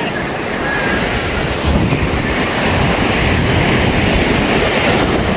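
Steady rush of water, with wind buffeting the microphone.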